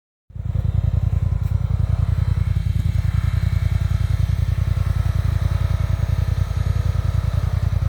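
Dacia Duster engine running steadily off-road, a low, rapidly pulsing rumble that starts just after the opening and holds an even pace without revving up or down.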